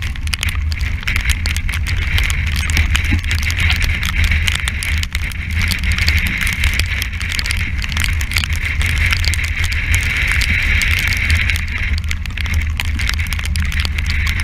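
Strong wind buffeting the yacht's deck-mounted camera microphone, giving a heavy steady rumble, with a steady high hiss of wind and sea and constant fine crackling from spray and water droplets hitting the camera.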